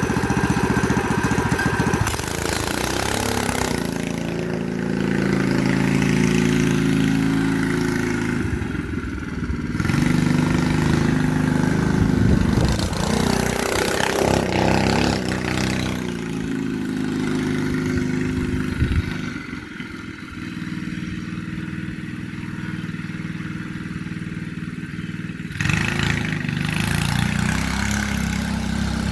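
Straight-piped Predator 212 single-cylinder engine on a homemade go-kart running, its revs rising and falling. It drops to a lower, quieter run about two-thirds of the way through, then picks up suddenly near the end.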